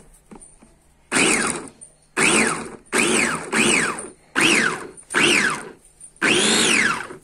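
Electric vegetable chopper pulsed seven times, the last burst a little longer: in each press the motor whirs up and then winds down in pitch as the cap is released, its blades chopping vegetables in the plastic bowl.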